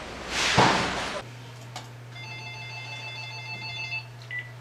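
A short rush of hissing noise in the first second, then a handheld phone's electronic ringtone: several high tones pulsing rapidly for about two seconds. It is followed by one short beep.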